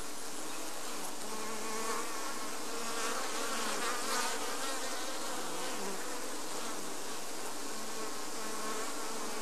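A mass of honey bees from a newly installed package humming steadily over an open hive.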